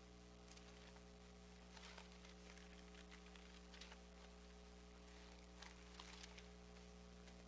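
Near silence: a steady electrical mains hum, with a few faint rustles of Bible pages being turned at the pulpit.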